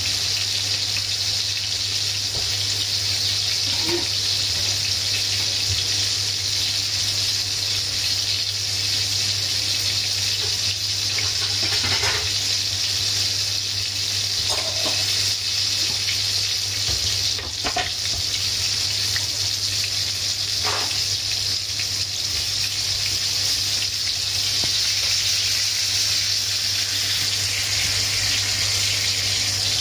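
Breaded pork chops sizzling steadily in hot oil in a frying pan, with a few faint pops over an even hiss.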